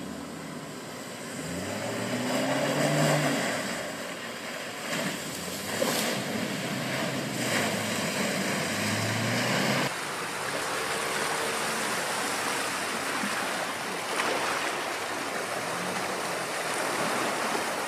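Land Rover Defender ploughing through deep muddy water, with a steady rush and splash of water against the body and the engine revving up a couple of times.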